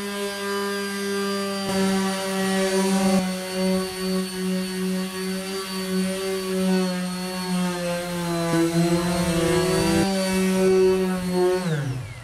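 Electric mouse sander running steadily as it sands back layered spray paint on a car bonnet, its pitch wavering slightly. It is switched off and winds down just before the end.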